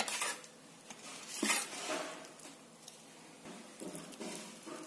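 Steel spatula scraping and clinking against a steel pan and plate as cooked rice is scooped out and served: a few separate short clanks and scrapes, the loudest about one and a half seconds in.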